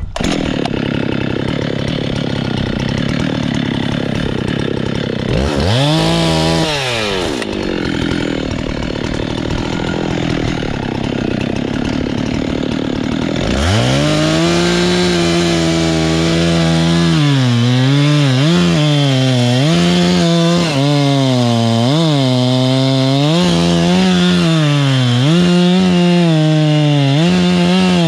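Chainsaw engine running, revved up and back down once about six seconds in. From about halfway it is held at high revs, its pitch dipping and recovering again and again as it bogs under load cutting into pine wood.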